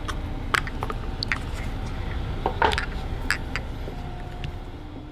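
LED headlight bulbs and their wiring being handled: scattered light clicks and rattles of plastic connectors and metal bulb bodies knocking together, over a steady low background hum.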